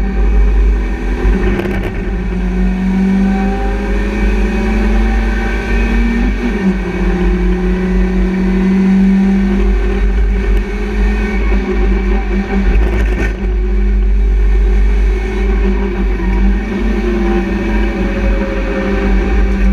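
BMW Compact Cup race car's engine heard from inside the stripped cabin while racing on track, its note climbing under power over a heavy low rumble and breaking off briefly a few times.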